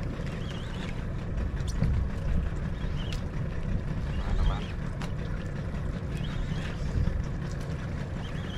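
Steady low rumble and water noise of a small fishing boat at sea, with a few faint clicks.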